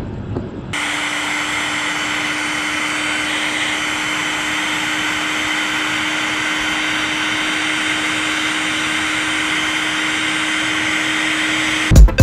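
Heat gun running steadily, an even blowing hiss over a constant low motor hum, starting abruptly about a second in; it is being used to shrink heat-shrink wire connectors.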